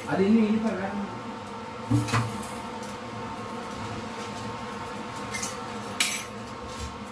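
A voice briefly at the start, then the steady hum of an induction cooktop running under a covered pressure cooker, with a light knock about two seconds in and a sharp click about six seconds in.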